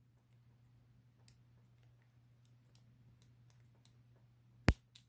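Lock pick working the pin tumblers of a vintage Yale five-pin padlock: faint, scattered small clicks as the pins are pushed up, with one sharp, louder click near the end.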